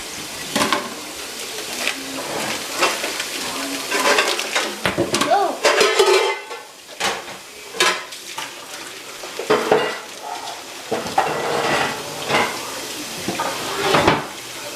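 Pots, pans and metal utensils knocking and clattering repeatedly, with food sizzling in a frying pan.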